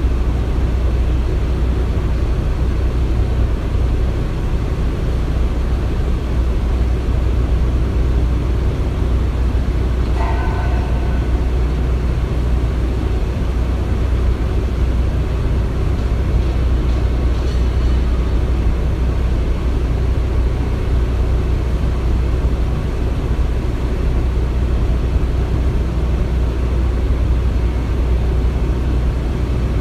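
Steady low rumble of heavy construction machinery running. A brief higher-pitched squeal comes about ten seconds in, and a faint high ring a little later.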